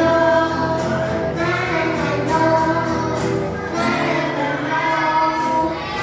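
Acoustic guitar accompanying a woman and a group of children singing a pop song together, with long held notes.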